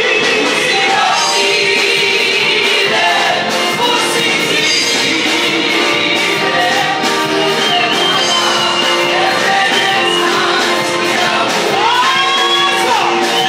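Music with singing, loud and continuous.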